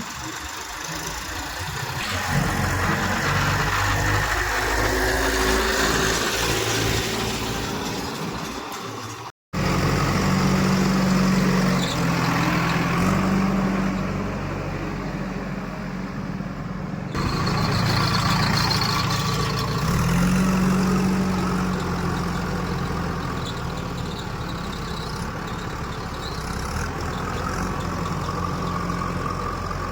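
Heavy diesel engines running under load, rising and falling in pitch as they rev. The sound cuts out for a moment about nine seconds in.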